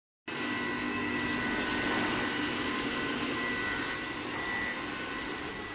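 BYFO BYL 1600 spiral duct machine running, forming metal strip into spiral duct: a loud, steady mechanical noise with a steady high whine. It starts about a quarter second in.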